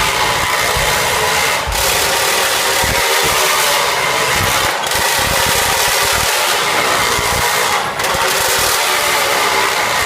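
Wall-of-death vehicle engines running hard as they circle the drum: a loud, continuous engine drone with short dips about every three seconds.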